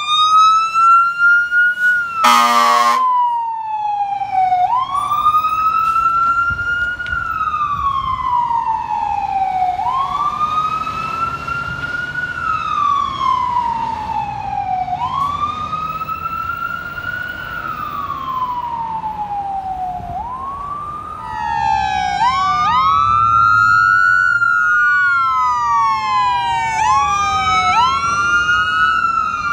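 Fire engine's electronic siren wailing, each cycle rising quickly and falling slowly about every five seconds, with a short air horn blast about two seconds in. About two-thirds of the way through, a second wailing siren from the following ambulance joins it out of step, so two wails overlap.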